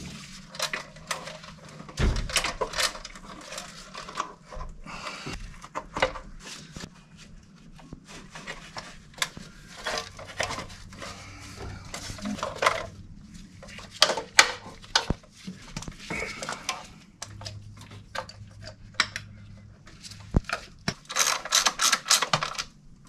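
Clinks, clicks and knocks of metal hand tools and engine parts being handled as vacuum hoses and the air cleaner housing are refitted over a carburetor. Near the end comes a quick run of clicks as a hand tool tightens down the air cleaner.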